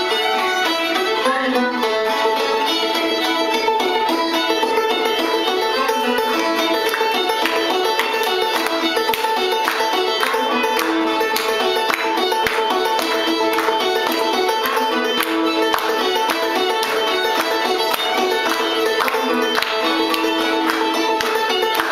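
Clawhammer banjo and fiddle playing an old-time tune together: the banjo's steady plucked, down-picked rhythm under the fiddle's bowed melody.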